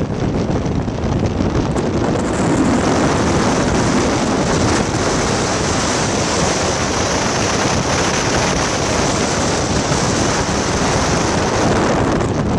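Steady, loud rushing noise of a moving train, heard from the train with wind blowing on the microphone.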